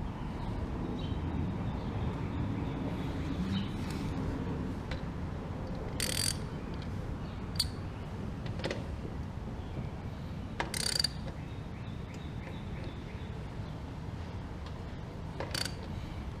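Hand tool tightening the fill cap on the motorcycle's shaft-drive final-drive housing: a handful of short metallic clicks and rattles spaced a few seconds apart, two of them (about 6 and 11 seconds in) running for around half a second, over a steady low background hum.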